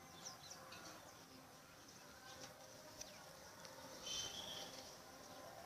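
Faint high bird chirps over quiet background, with a short burst of chirping about four seconds in.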